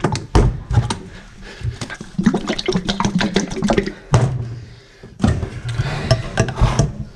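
Tins of gloss paint shaken hard by hand, the paint sloshing and knocking inside the metal cans in quick rattling bursts. Near the end a screwdriver levers at a tin's lid with metal clicks.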